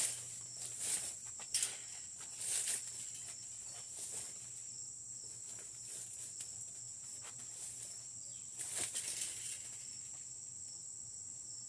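Clear plastic greenhouse cover rustling and crinkling in several short bursts as it is pulled down over the metal shelf frame, over a steady high-pitched drone of insects.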